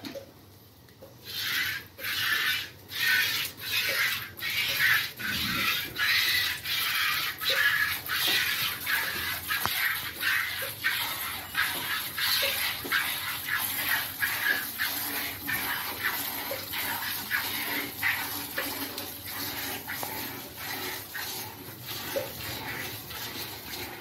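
A cow being milked: streams of milk squirt into a pail in a steady rhythm of about one and a half to two squirts a second, starting about a second in.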